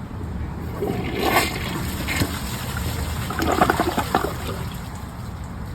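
American Standard Studio toilet flushing a plastic bag and water balloons: water splashes about a second in, then rushes down the bowl.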